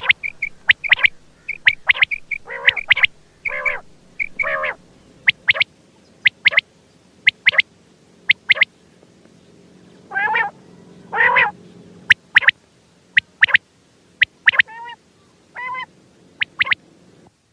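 Quail calling: a run of short, sharp chirps with a few longer, harsher wavering calls in between, over a faint steady hum. The calls cut off suddenly near the end.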